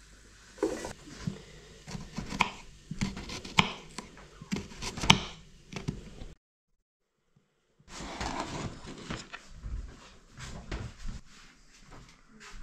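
Irregular knocks and clatter of things being handled in a kitchen. The sound cuts out to silence for about a second and a half just past halfway, then the clatter resumes.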